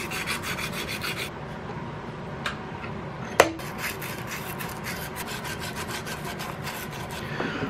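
Sandpaper wrapped on a flat file, rubbed back and forth inside an iron trigger guard held in a vise: rapid scraping strokes at a steady pace, smoothing the filed metal. The strokes ease off a little over a second in, there is one sharp click about three and a half seconds in, and then the strokes pick up again.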